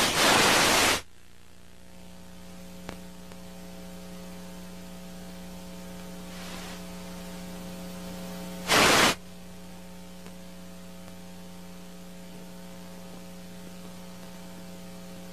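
Dead television broadcast audio after the feed was knocked out by the earthquake. A loud burst of static lasts about a second, then a steady electrical mains hum with faint hiss follows. A second short burst of static comes about nine seconds in.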